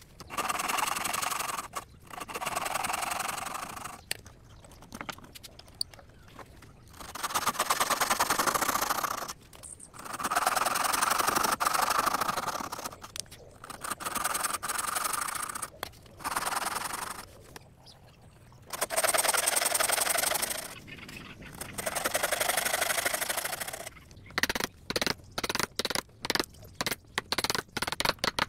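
A hand saw rasps through wood in a series of passes, each lasting one to two seconds, with short pauses between them. In the last four seconds a hammer strikes a chisel into the wood again and again, about three sharp blows a second.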